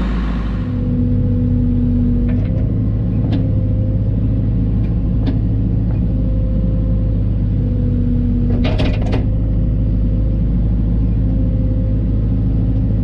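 Cat 304 mini excavator's diesel engine running steadily under working load as the controls are worked. A higher steady tone comes in briefly twice, near the start and again about eight seconds in. There are a few light clicks and a short clattering burst about nine seconds in.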